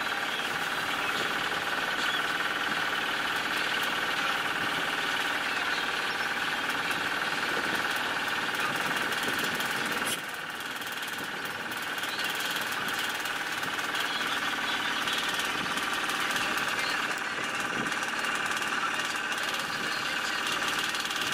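Motorboat engine running steadily at cruising speed, a constant mechanical drone with a brief drop in level about ten seconds in.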